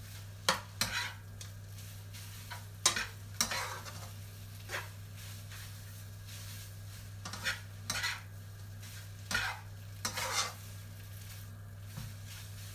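Spatula scraping and tossing pad Thai noodles with shrimp and egg around a nonstick wok, in a dozen or so irregular strokes, over a faint steady low hum.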